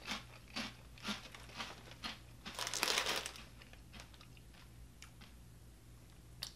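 Crunching of a mouthful of red ring-shaped fruit cereal, like Fruit Loops, chewed at about two crunches a second, with the clear plastic cereal bag crinkling briefly about three seconds in.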